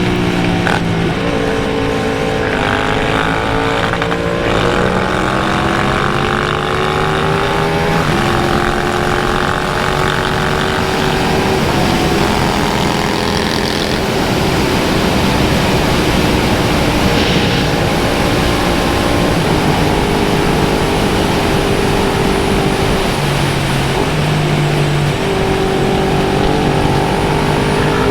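Big motorcycle engine under way. Its pitch climbs for several seconds, drops sharply about eight seconds in as a gear changes, then holds a fairly steady cruise with a brief dip and rise near the end, over a steady rush of noise.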